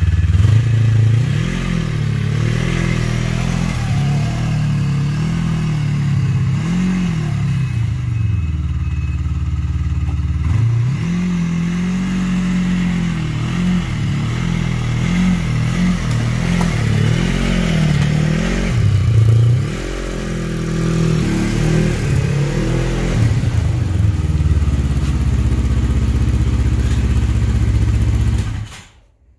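Snowmobile engine running and being throttled up and down as the sled is driven on ski wheels across rough grass, its pitch rising and falling again and again. The engine sound cuts off abruptly near the end.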